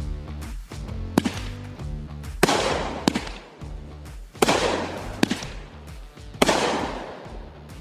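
Consumer fireworks going off: a run of sharp bangs, roughly one every second, three of them trailing into a fading crackly hiss. Background music with a steady bass line plays underneath.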